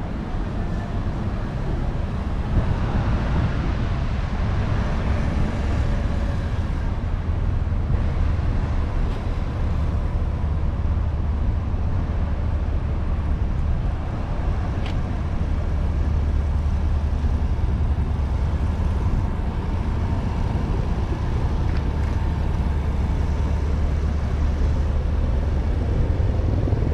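Street traffic ambience: cars passing on the road, with a steady low rumble underneath.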